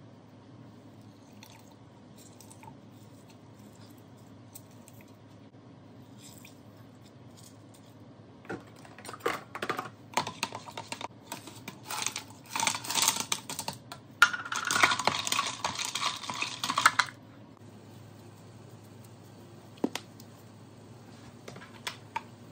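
A covered plastic pitcher of juice being shaken to mix it: liquid sloshing with the lid and jug rattling in uneven bursts, starting about eight seconds in and stopping abruptly after about eight seconds. There are a few faint clicks and knocks before and after it.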